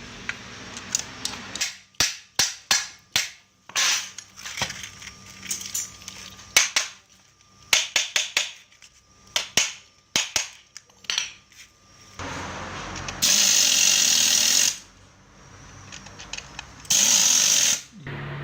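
Workshop tool noise during an electric-fan restoration: a run of irregular sharp knocks and taps, then two abrupt bursts of steady hissing, each about a second and a half long.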